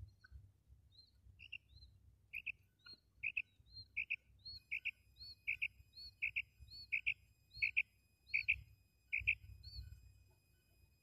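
Female quail calling: a series of about ten short double-note calls, repeated evenly a little more than once a second, with a few softer notes before them. This is the hen's call that hunters use to draw in males.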